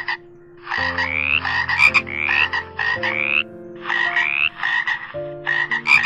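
A frog croaking: about five quick bouts of rapid pulsed calls, each rising in pitch.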